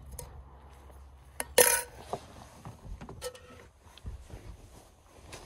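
Metal camp pot clanking as it is handled: one loud metallic clank about one and a half seconds in and a lighter clink with a short ring about three seconds in, with small knocks and rustling between.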